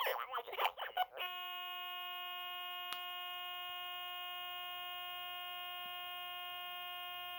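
Glitching Furby (2001 re-release) speaker: about a second of garbled, stuttering electronic voice, then it locks into one steady, unbroken electronic tone, with a single click about three seconds in. It is the toy stuck in an audio glitch, which the owner suspects is the Furby having crashed.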